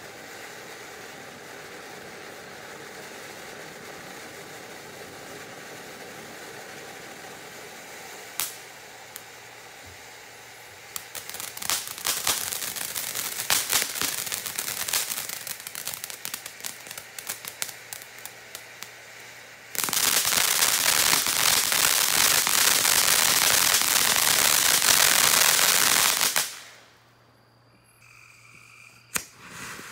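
Ground fountain fireworks spraying with a steady hiss, then crackling with many rapid pops from about a third of the way in. A louder dense hiss and crackle follows and cuts off suddenly, with one more pop near the end.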